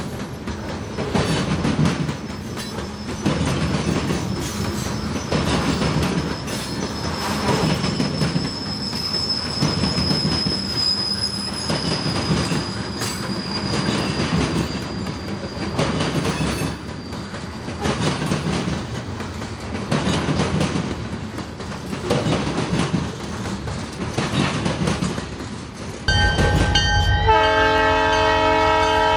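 Covered hopper cars of a grain train rolling by, with a regular clacking of wheels over rail joints and a thin, slightly falling wheel squeal in the middle. Near the end, a locomotive's multi-tone air horn sounds loudly.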